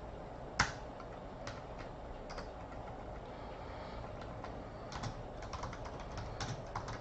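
Typing on a computer keyboard: irregular keystrokes, one sharper click about half a second in and a quicker run of keys near the end.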